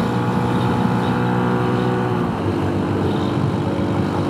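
Honda Super Cub C125's single-cylinder four-stroke engine running at full throttle, a steady engine note over wind rush; about two seconds in the engine note shifts to a different pitch pattern.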